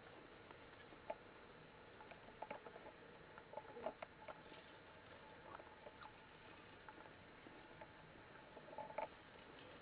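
Near silence: faint outdoor ambience with a steady high hiss and scattered faint short clicks, a few bunched about three to four seconds in and again near the end.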